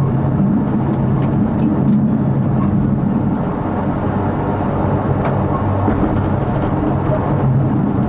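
Prague tram running along street track, heard from inside the driver's cab: a steady low rumble of wheels on the rails with a constant low hum.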